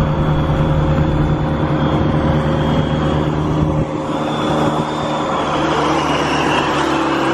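Car engines droning at a steady cruise as two cars roll side by side, with wind and road noise through an open car window. The deep low hum falls away about four seconds in.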